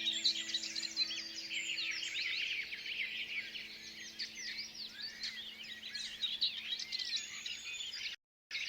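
Many small birds chirping and singing at once in a dense chorus, with a held low chord of background music fading out underneath. The sound cuts out briefly near the end.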